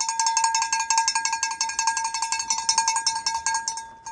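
A bell rung rapidly and continuously, a clear steady ring with many quick strikes a second, stopping shortly before the end. It is the signal calling the pigeons down to land.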